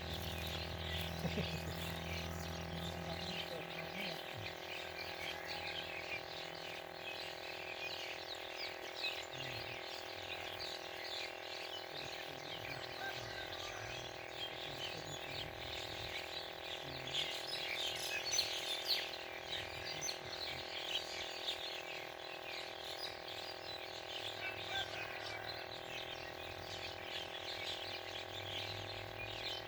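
Outdoor ambience of many small birds chirping, with a steady layered drone beneath; a low hum fades out about four seconds in.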